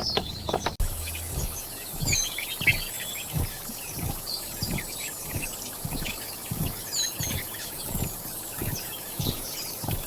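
Unhurried, even footsteps, about three every two seconds, with small birds chirping around them. In the first second a brief mechanical clicking over a low hum cuts off.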